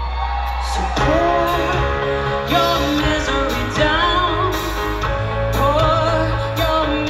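Live rock band playing, with drums, bass and guitars under a female lead vocal that comes in about a second in.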